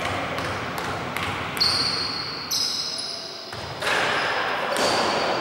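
Basketball bouncing on a hardwood court in a large echoing gym, with a couple of high sneaker squeaks on the floor in the middle and players' voices.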